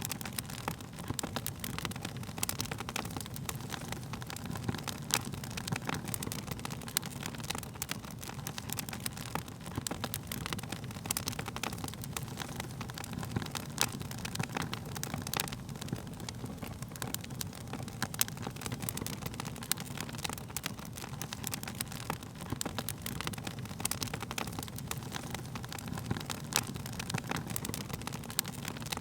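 Burning wood crackling: frequent sharp pops and snaps, irregularly spaced, over a steady low rumble.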